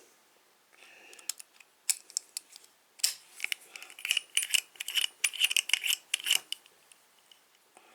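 Master Lock dial combination padlock being handled: a rapid run of sharp metallic clicks and rattles with a light ringing, starting about a second in and stopping near the six-and-a-half-second mark.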